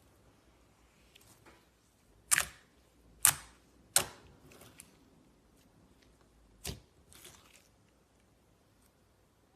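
Slime being handled: four sharp smacks or pops, three in quick succession and one a few seconds later, followed by a softer squelching rustle.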